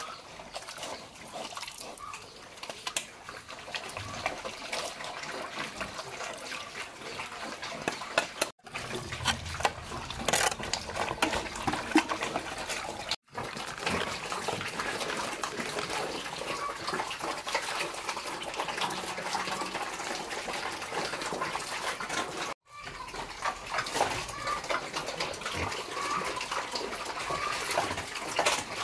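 Pigs eating wet vegetable slop from a concrete trough: continuous wet slurping, smacking and chewing, with slop sloshing as it is ladled from a bucket. The sound cuts out briefly three times.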